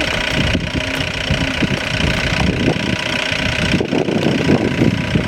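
A motor vehicle's engine running steadily at idle.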